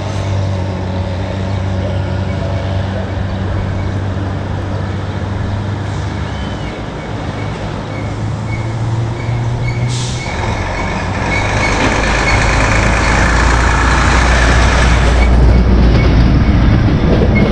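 A heavy vehicle engine humming steadily, then a louder, rougher rumble that builds from about halfway through and holds to the end.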